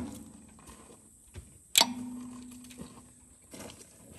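Sharp snaps of a small-engine ignition sparking during a spark test, a light one at the start and a louder one about two seconds in. A faint steady hum follows the louder snap for over a second.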